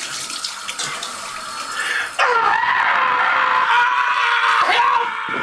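Tap water running and splashing into a sink as a man washes his face. About two seconds in, a man's long, loud scream breaks in and is held for about three seconds.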